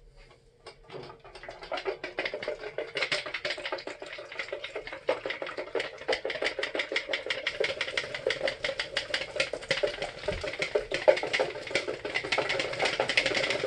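Wire whisk beating an egg white in a plastic mixing bowl, a fast, even run of clicking strokes that starts about two seconds in, whipping the white up to a froth.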